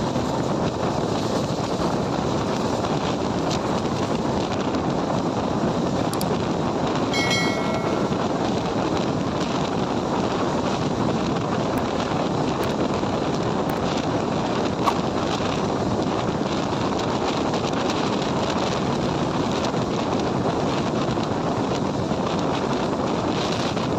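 Passenger train running at speed, heard from an open coach doorway: a steady rushing noise of the wheels on the track mixed with wind buffeting the microphone. A brief high pitched tone sounds about seven seconds in.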